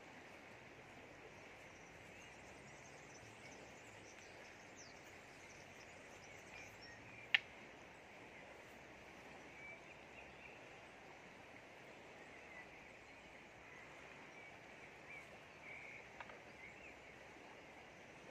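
Quiet, steady rush of a flowing river, with faint bird chirps and one sharp click about seven seconds in.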